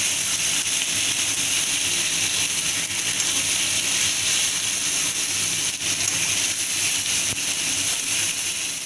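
Chicken pieces sizzling in hot oil and spice masala in a kadai as they are stirred and sautéed with a spatula. It is a steady hiss with an occasional faint scrape of the spatula.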